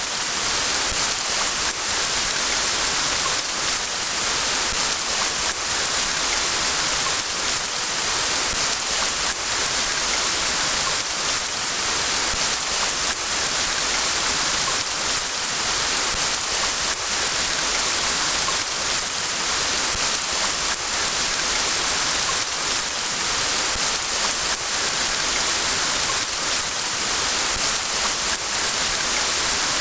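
Steady rain falling in a forest: an even hiss weighted toward the high end, with faint scattered drop taps throughout.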